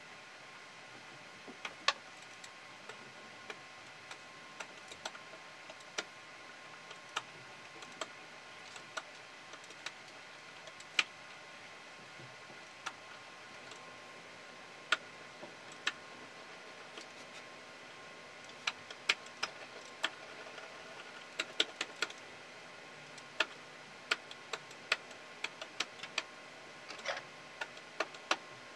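Scattered light clicks and taps from a tube of black printing ink and a rubber brayer being handled and rolled on an inking plate, coming faster in the last third, over a steady faint hiss.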